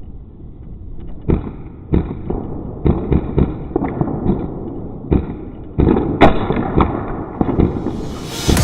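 An irregular run of about a dozen sharp pops and knocks over a rumbling background, typical of airsoft guns firing and gear knocking during close-quarters play. Electronic dance music fades in at the very end.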